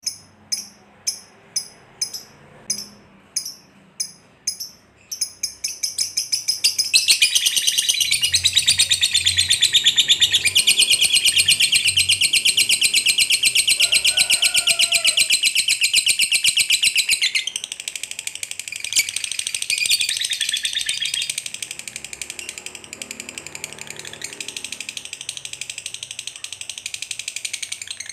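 Lovebird giving its long 'ngekek' chattering song. It starts with a few separate sharp chirps about two a second, then about five seconds in breaks into a fast, unbroken rattling trill. The trill runs on for over twenty seconds, loudest in its first half.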